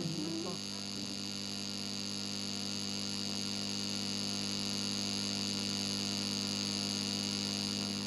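A steady drone of many held tones at once, pulsing rapidly, slowly growing a little louder.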